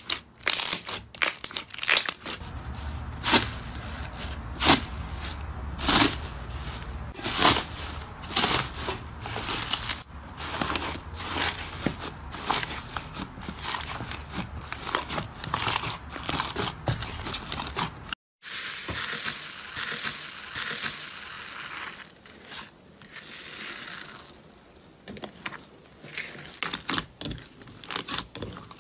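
Hands squeezing and kneading slime, with many sharp pops and crackles of trapped air bursting. After about eighteen seconds the sound turns to a softer, quieter squishing and crinkling as a different slime is worked.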